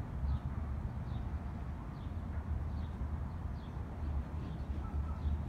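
Outdoor ambience: a steady low rumble with a faint, high, short bird chirp repeating a little more than once a second.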